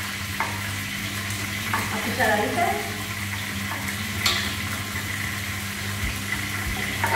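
Meat browning in a large steel stockpot on a gas burner, with a steady sizzle. A few sharp knife taps on a plastic chopping board as garlic is chopped; the loudest tap comes a little past the middle. A low steady hum sits underneath.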